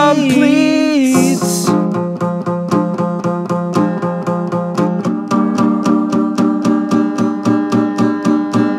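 Music: a sung note held with a waver ends about a second in, then a guitar, sounding acoustic, strums a steady rhythm of chords, changing chord about five seconds in.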